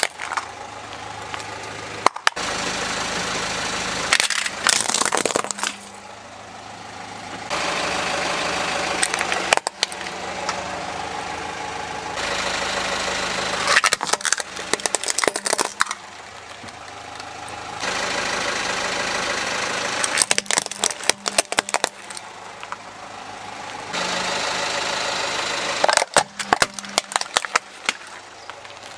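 A car tyre rolling over hard plastic toy vehicles and crushing them, in several clusters of sharp cracking and snapping a few seconds apart. The car's engine idles steadily between the cracks.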